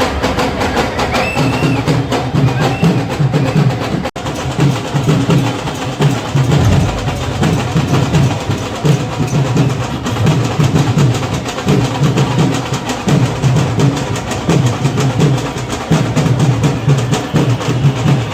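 Street procession drumming: rapid, crackling snare-like strokes and rolls over a steady, pulsing low drum beat. The sound cuts out for a moment about four seconds in.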